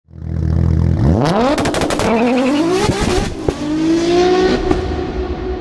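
Twin-turbo V6 of an Audi RS4 sedan through its bassy, dull-toned exhaust, going from a low idle to hard revving: the pitch climbs about a second in, drops back at a shift and climbs again, with a quick run of sharp cracks during the first climb.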